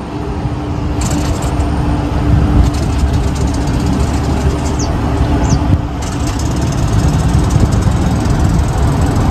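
Tohatsu 15 hp fuel-injected outboard motor pull-started and running steadily, its leg in a barrel of water for a flush test.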